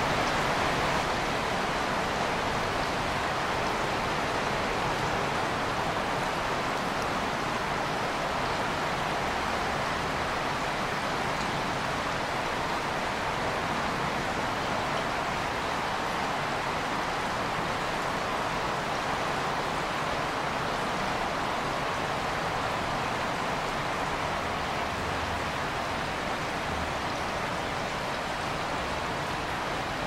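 Steady rushing of flowing creek water, an even wash of noise that holds at one level throughout.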